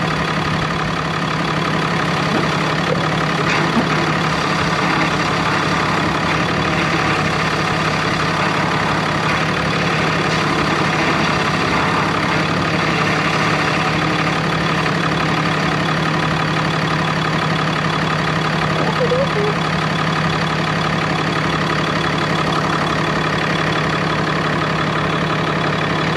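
Cummins 6.7-litre straight-six turbo diesel idling steadily.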